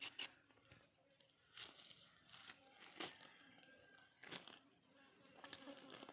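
Faint, scattered crackles and scrapes of a knife cutting raw chicken skin against a wooden block and of the skin and feathers being pulled from the carcass by hand, a few separate short sounds about a second apart.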